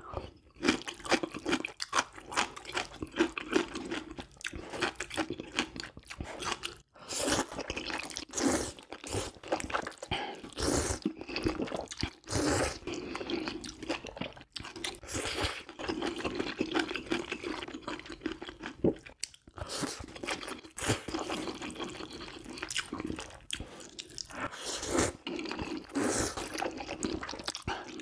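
Close-miked eating sounds: a person chewing and slurping a soupy meal, with crunchy bites and wet smacking in a dense, irregular run.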